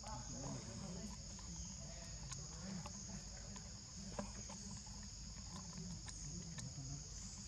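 Steady, high-pitched drone of an insect chorus, with a faint low murmur underneath and a single sharp click about four seconds in.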